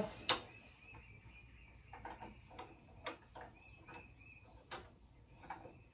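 Steel mower blade clicking and tapping against a bench vise as it is set and clamped: one sharp metallic click just after the start, then a handful of lighter, scattered clicks. A faint steady high insect-like hum sits underneath.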